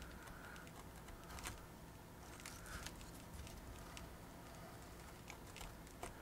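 Faint, irregular light clicks and a couple of short scratches of hand work on a paper card model, over a steady low room hum.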